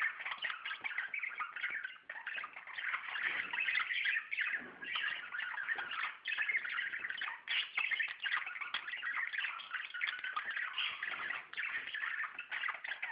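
A group of budgerigars chattering and chirping continuously, many short chirps overlapping.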